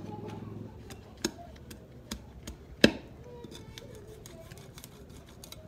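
A broad knife chopping and cutting at a plant's roots: a few sharp strikes, the loudest a little under three seconds in, followed by a quick run of lighter clicks.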